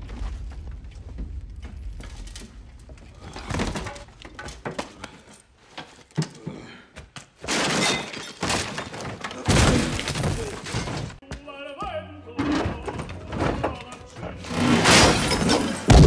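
Film fight sound effects: a series of heavy blows and thuds, with glass shattering and breaking as bodies crash through a glass-paned window, over music.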